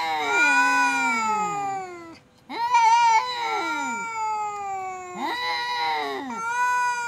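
Two cats caterwauling at each other in an angry face-off: long, drawn-out, wavering yowls that overlap and slide down in pitch, with a brief break a little over two seconds in.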